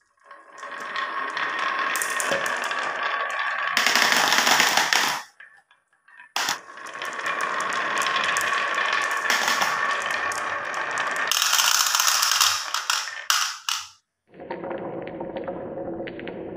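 A line of marbles rolling down a carved wavy wooden track: a dense rattling clatter of many small clicks, in two runs with a short pause about five seconds in, each run loudest near its end. After a break near the end, a quieter, duller rolling rattle starts as another run begins.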